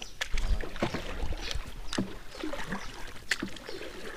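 Small boat on a lake: scattered, irregular knocks and light water sounds from the hull and paddling.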